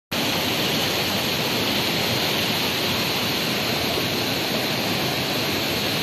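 Fast, foaming white water of the Düden River rushing over rapids, a steady, unbroken rush of water.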